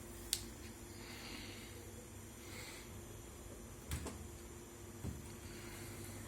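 Steady low electrical hum of a running household appliance, with a few faint clicks.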